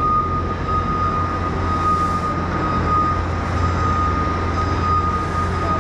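A machine running steadily: a low rumble with a continuous high-pitched whine over it.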